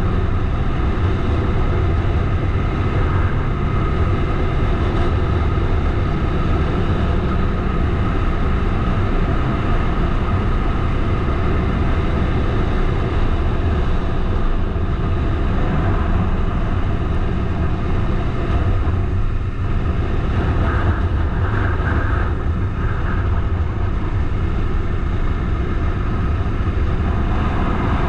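Bajaj Dominar 400 motorcycle under way, its single-cylinder engine running steadily under road and wind noise.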